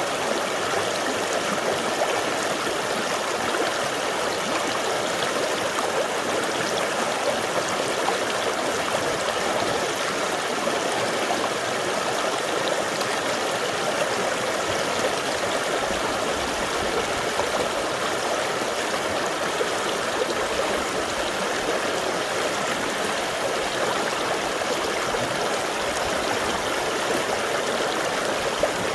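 Clear mountain stream rushing steadily over rocks in a valley, a continuous even wash of water sound.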